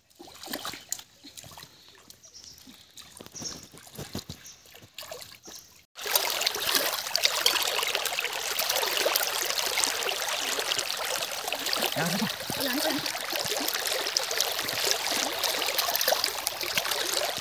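Soft scattered steps and splashes in shallow water at first. About six seconds in, it cuts to a steady, close rush of trickling river water, with hands splashing in it near the end.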